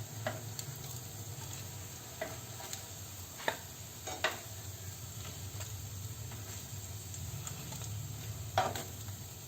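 Hot oil sizzling around fried bread rolls in a pan as they are lifted out, with a handful of sharp clinks of a spoon against the pan.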